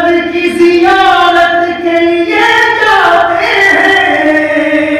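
A man's unaccompanied voice in a sung recitation of an Urdu poem through a microphone, holding long melodic notes that step down in pitch around the middle.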